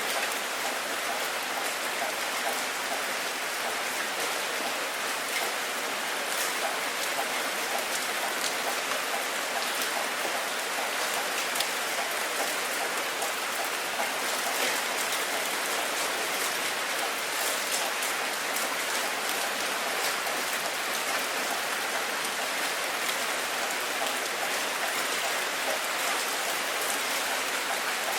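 Steady rain falling, a dense even hiss with fine drop ticks and no change in strength.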